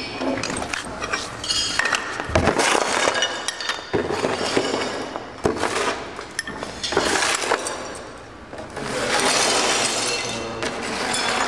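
Repeated clinks, knocks and clatter of hard objects, with a longer stretch of hiss near the end.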